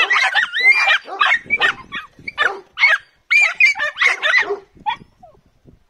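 Jagdterrier puppy yelping and barking rapidly in high-pitched, excited bursts, about three a second, breaking off near the end.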